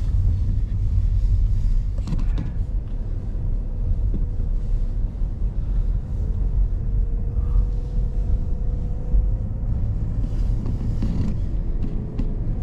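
Car driving slowly, heard from inside the cabin: a steady low rumble of engine and tyres, with a faint tone rising slowly from about six seconds in. A couple of faint creaks from the car's interior.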